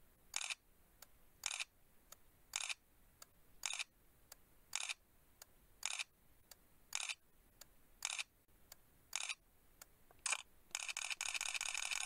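Camera shutter clicks, ten in an even row about one a second, then a rapid burst of shutter clicks for about a second near the end, like continuous shooting.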